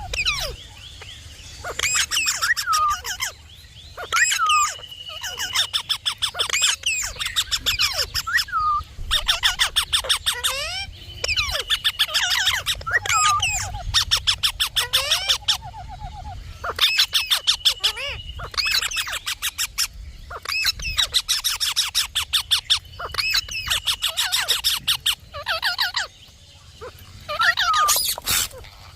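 Indian ringneck parakeet calling: bursts of very rapid, trilled chattering notes alternating with sliding whistles and, now and then, a held high whistle.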